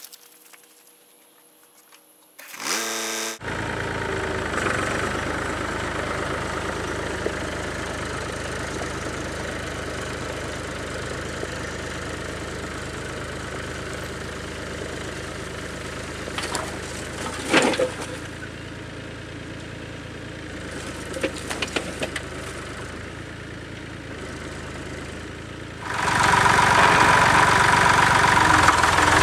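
Massey Ferguson diesel tractor engine starting about three seconds in, then running steadily, with a few sharp clanks partway through. Near the end a louder, closer tractor engine takes over after a cut.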